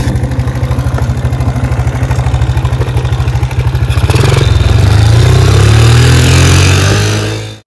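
Small motorbike engine idling with an even, rapid chug, then revving up about four seconds in as the bike pulls away, its pitch climbing steadily. The sound cuts off suddenly at the end.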